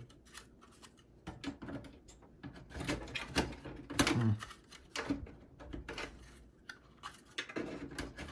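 Irregular clicks, taps and knocks of hands working drive hardware and a SATA power cable inside a desktop computer case, with one louder knock about four seconds in.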